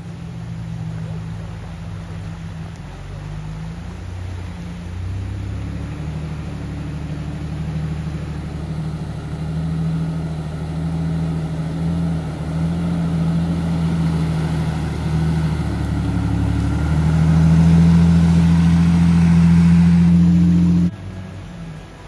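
Four-wheel drive's engine running steadily under load, growing louder toward the end, then cut off suddenly about a second before the end.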